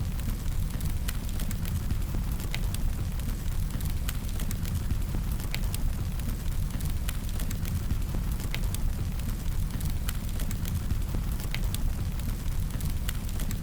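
Fire sound effect: flames burning with a steady low rumble and scattered sharp crackles and pops.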